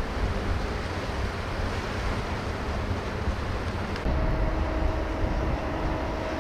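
Wind buffeting the microphone over rushing open river water. About four seconds in the sound changes abruptly to a low rumble with a steady hum.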